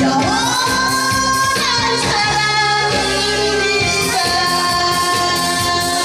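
A woman singing into a microphone over amplified backing music, holding long notes with smooth slides in pitch between them.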